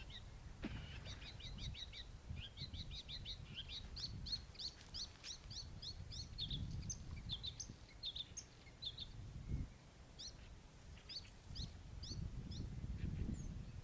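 Small songbirds chirping and singing in rapid runs of short, high notes, with a low rumble underneath.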